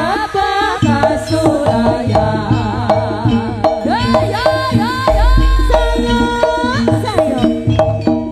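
Bass-heavy jaranan music: kendang hand drums playing quick strokes over steady repeating pitched tones, with a gliding melody line above. A deep bass boom comes in about five seconds in and lasts under two seconds.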